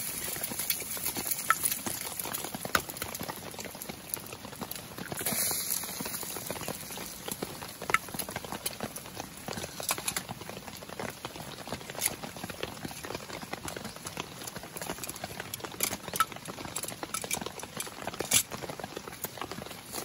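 Eggs frying in a steel skillet over a wood fire: a steady sizzle, with frequent crackles and pops from the burning logs.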